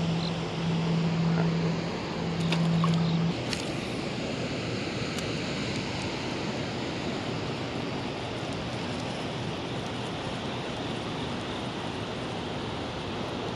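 Steady rush of turbulent water in the outflow below a hydroelectric dam running its generators. A low steady hum runs through the first three seconds and then stops.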